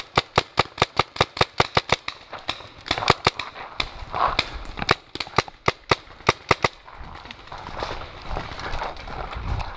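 Paintball marker firing rapid strings of sharp pops, about five a second, which stop about seven seconds in. Then dry leaves and brush rustle as the player moves through the undergrowth.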